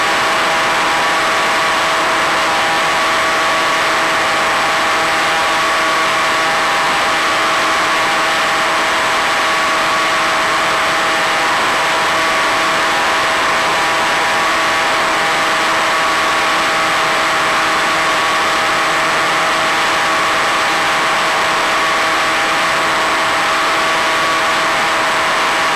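Easystar RC plane's electric motor and propeller running at steady throttle: a constant drone of several fixed tones over an even hiss.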